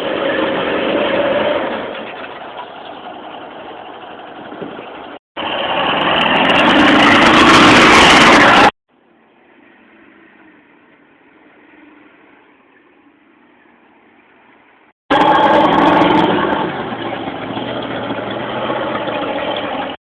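Off-road vehicle engine running and revving, heard in several short clips that cut in and out abruptly, with a louder stretch in the middle and again near the end.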